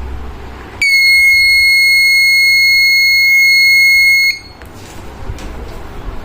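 Buzzer of a homemade panic alarm sounding one loud, steady high-pitched tone for about three and a half seconds, starting about a second in and cutting off suddenly: the alarm being triggered.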